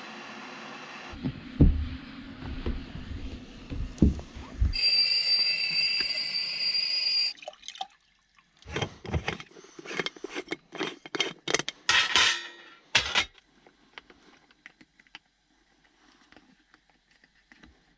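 Stovetop kettle whistling on a gas stove, a steady high tone lasting about two and a half seconds and cut off sharply. Before it come low knocks and rumbles; after it, a run of sharp clinks and clatters as cups and bottles are handled.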